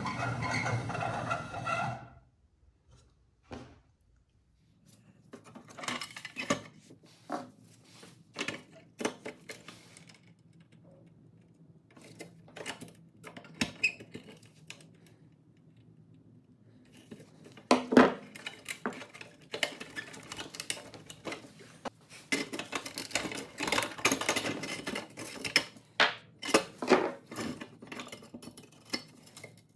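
Hand tools picking and prying at the rusty pressed-steel chassis of a 1970s Tonka cement mixer toy as it is taken apart: scattered metallic clicks, clinks and short scrapes, with one loud click about eighteen seconds in.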